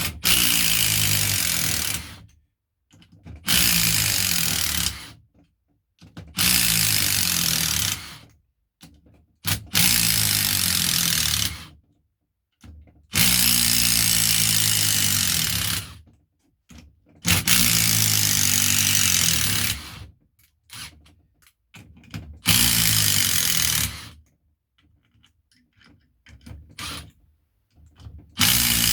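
A cordless brushless impact driver backs 8 mm coach screws out of pre-drilled oak. It hammers in about eight separate bursts of one to three seconds each, with short pauses between screws.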